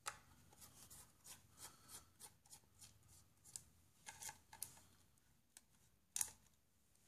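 Faint, irregular clicks and rustles of hands handling wires and plastic parts on a hobby RC car's chassis and circuit board, with a sharper click about six seconds in.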